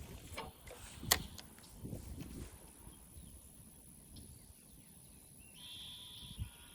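Faint outdoor ambience with light handling rustles and one sharp click about a second in. A bird calls with a high, trilled note from a little before the end.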